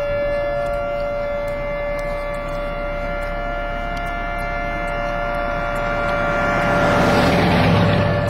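Outdoor tornado warning sirens sounding a steady, unwavering wail. A rushing noise swells near the end, louder than the siren.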